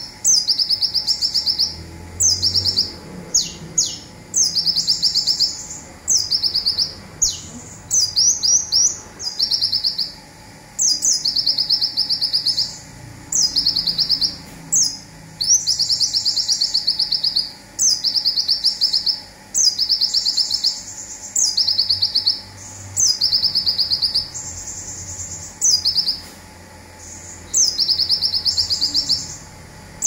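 Male konin (van Hasselt's sunbird) singing its 'zipper' song: a high, fast buzzing trill, each phrase opening with a sharp downward note, repeated about every one and a half seconds. A few phrases are only the short downward notes without the trill.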